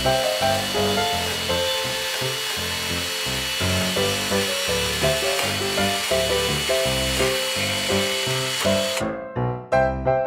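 The high, steady whine of a miniature chainsaw cutting through a small wooden dowel, over background music with a steady beat; the whine cuts off suddenly about nine seconds in.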